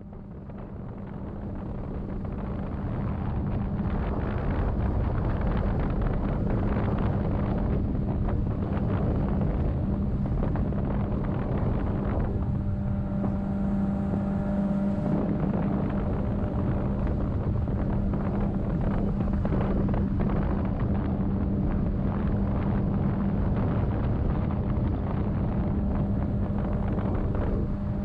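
Jet boat's engine running steadily under way, a constant drone, with wind on the microphone. The sound fades in over the first few seconds.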